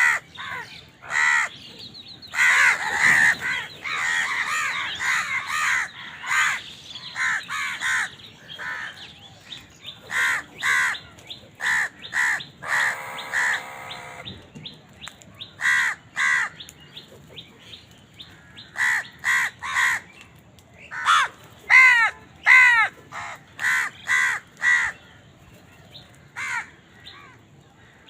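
Crows cawing over and over in short harsh calls, several birds calling over one another for a few seconds early on, then separate caws with short gaps between them.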